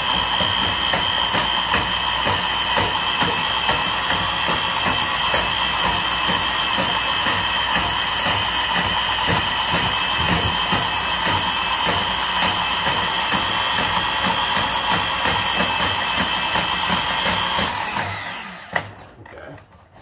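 Ridgid K-45 drum drain snake running steadily, a motor whine with fast ticking as the spinning cable is fed forward into a clogged washing machine standpipe to feel for the obstruction. The motor stops and winds down about 18 seconds in.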